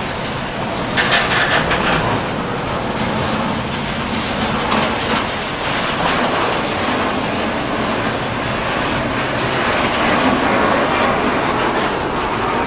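Double-stack intermodal freight cars rolling past: a steady rush of steel wheels on rail, broken by irregular clicks and knocks from the wheels on the track.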